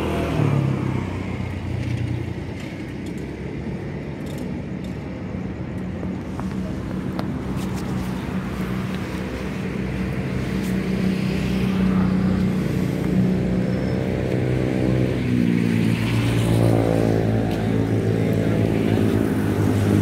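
A motor vehicle engine running nearby, its pitch shifting up and down as it speeds up and slows in the second half.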